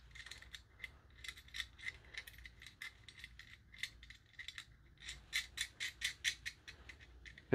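Small metal clicks and rattles of a nut, washer and ground lug being worked onto a bolt by hand on a ground rod clamp. A quick run of light ticks, busiest about five to six seconds in.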